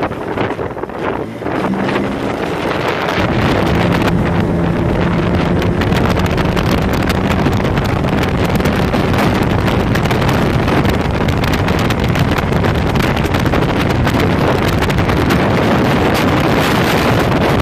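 Motorboat engine running under way, growing louder about three seconds in, with heavy wind buffeting the microphone.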